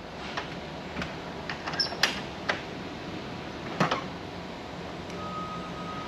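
A handful of sharp knocks and clunks as someone works on the steel stern deck of a moored narrowboat, the loudest about two seconds in and again near four seconds, followed by a faint steady high note.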